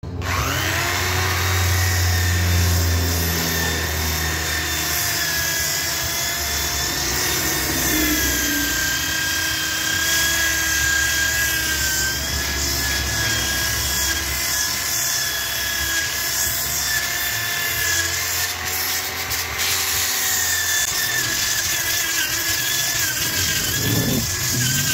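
Homemade mini lathe driven by a juicer motor, running with a steady high whine that wavers slightly in pitch.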